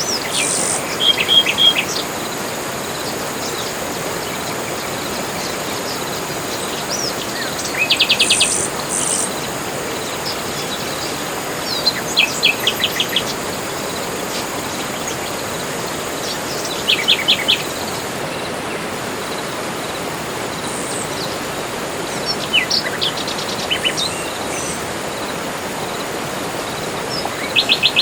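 Birds in a tropical forest singing: short, rapid series of high repeated notes, each about a second long, recurring every four to five seconds. Under them runs a steady hiss of insects.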